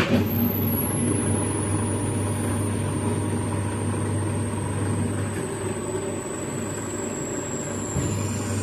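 Electric blender switched on and running steadily, blending chilies, fresh coriander, garlic, lemon juice and olive oil into a paste. The motor starts suddenly, with a steady hum and a high whine that slowly drops in pitch.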